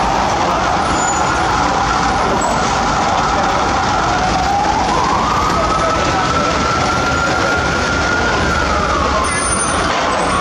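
Loud truck noise with a whine that climbs in pitch about halfway through, holds there for a few seconds, and drops back near the end.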